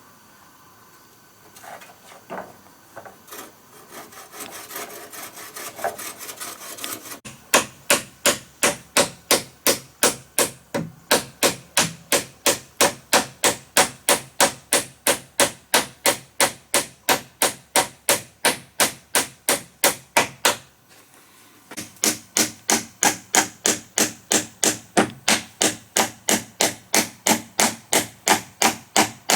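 A hand tool working wood in rapid, even strokes, about three or four a second, with a brief pause about two-thirds of the way through. Before the strokes settle in there are several seconds of irregular scraping and knocks on wood.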